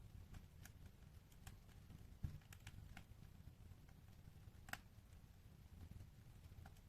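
Wood fire in a fireplace crackling quietly: scattered sharp pops and ticks over a low rumble from the burning. A dull thump comes about two seconds in, and the loudest crack a little past the middle.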